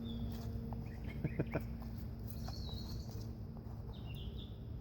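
Birds chirping now and then in the woods, with a few short sharp clicks about a second and a half in.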